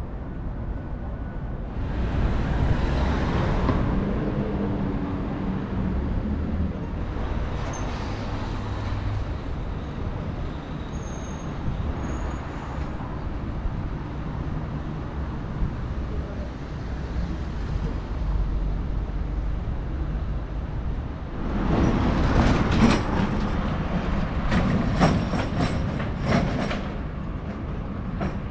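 Street ambience with passing traffic. About three quarters of the way through, a vehicle passes close by for several seconds with a run of sharp rattling clacks.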